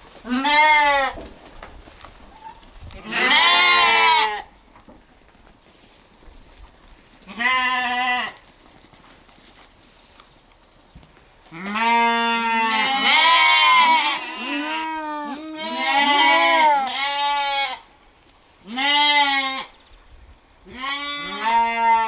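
Lambs bleating: short single calls a few seconds apart, then a run of several lambs calling over each other in the middle.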